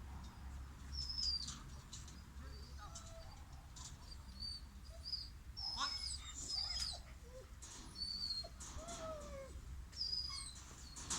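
Small birds chirping: scattered short, high calls that slide downward in pitch, over a steady low rumble.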